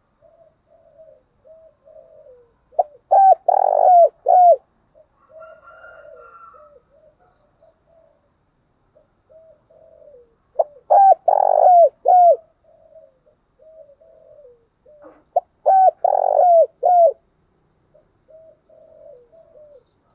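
Spotted dove cooing: runs of soft, quick coos broken three times by a loud phrase of several coos, about every six seconds.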